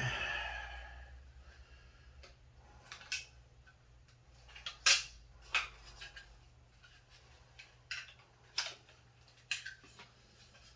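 Parts of a tower fan's base being handled during assembly: a scrape or rattle at the start, then a few separate sharp clicks and knocks, the loudest about five seconds in.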